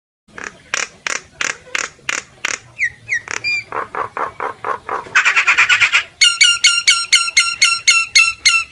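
Common myna singing a varied run of calls: harsh notes repeated about three a second, a few quick gliding whistles, a fast rattle, then sharp downslurred whistles repeated five or six a second.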